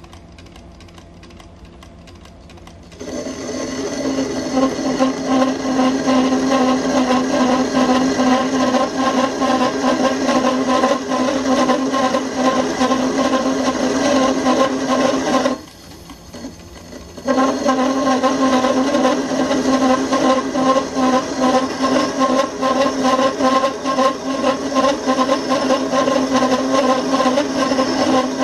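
Homemade CNC lathe's 2 mm grooving tool cutting into a 48 mm S45C steel bar turning at 100 rpm: after about three seconds of quiet running, a loud, steady pitched buzz sets in as the tool engages. It breaks off for about a second and a half past the middle, then resumes.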